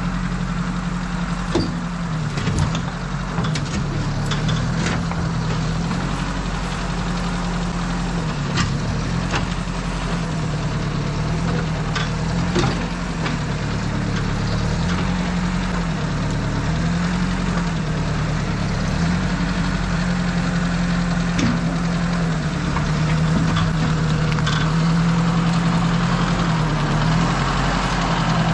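Engine of an 860 two-wheel-drive farm tractor running under load. Its speed sags and recovers again and again as it pushes soft, wet dirt and struggles for traction. A few sharp knocks and clanks come through over it.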